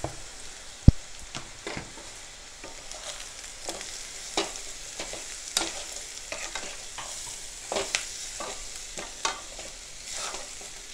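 Onions, grated coconut and whole spices sizzling in oil in an aluminium kadai, stirred with a silicone spatula that scrapes against the pan at irregular intervals. A sharp knock about a second in is the loudest sound.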